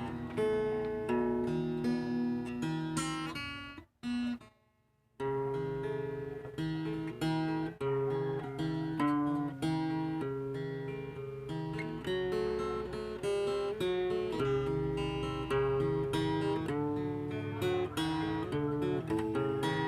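Guitar picked fingerstyle, playing an instrumental melody over a bass line of plucked notes, with a break of about a second about four seconds in before the playing resumes.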